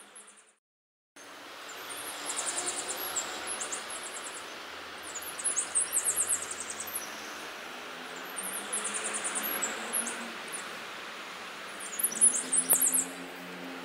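Outdoor wildlife ambience: clusters of short, high-pitched chirping trills recur every few seconds over a steady hiss, after about a second of dead silence near the start.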